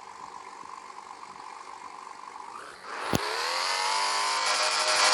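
Turbocharged Porsche engine, upgraded turbos making about 892 hp, running steadily at first. About three seconds in it is put under hard acceleration: a sharp crack, then the engine note rises steadily in pitch and grows louder.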